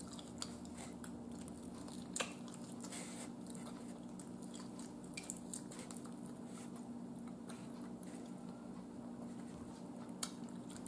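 Quiet chewing and a few faint smacking mouth clicks as barbecued meat is bitten and eaten by hand, over a steady low hum.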